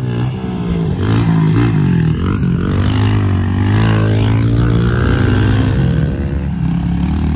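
Small pit bike engine running hard on a dirt track, its pitch rising and falling as the throttle is worked.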